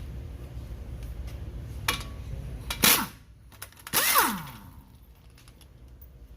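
Metal hand tools and brake parts being handled: a few light clicks, then two loud metallic clanks about a second apart, each ringing briefly and falling in pitch.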